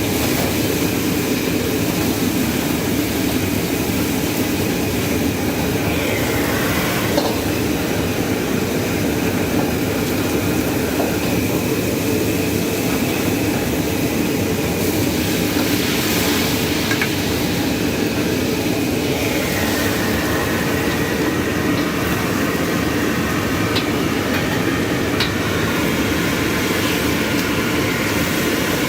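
Steady, unbroken background noise with a low hum. Faint tones slide in pitch about six seconds in and again near twenty seconds.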